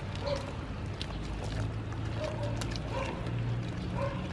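Wooden ladle scraping chunks of boiled oxtail off a woven bamboo basket into a pot of soup, with soft clicks and knocks, over a low steady rumble. A dog gives a few short whimpering yips.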